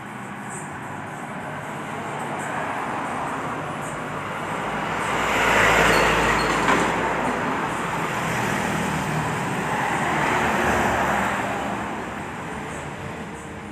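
Road traffic passing: a heavy vehicle's deep rumble swells and fades about halfway through, and another vehicle passes a few seconds later, over a steady traffic hum.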